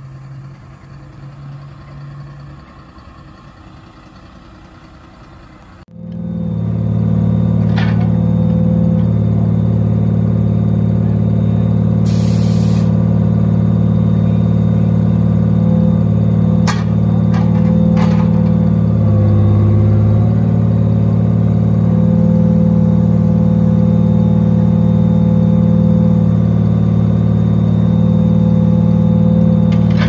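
A log truck's diesel engine running steadily and loud while it powers the truck's hydraulic knuckle-boom log loader. It comes in abruptly about six seconds in, after a quieter engine hum. A brief hiss and a few sharp knocks come through it.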